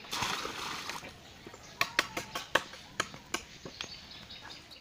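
Water poured from a plastic bucket splashing into a muddy, water-filled pit, followed by a run of sharp clicks and taps.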